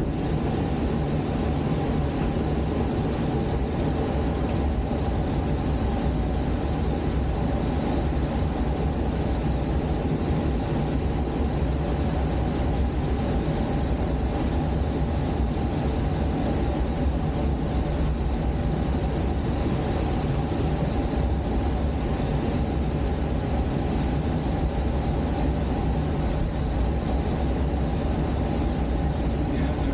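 Steady rush of air past a glider's canopy and fuselage as it descends on approach to land, with a steady low drone beneath it.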